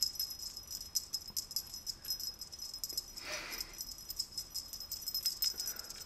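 Feather wand cat toy being shaken and swatted by a cat, giving a quick, irregular light rattling and jingling.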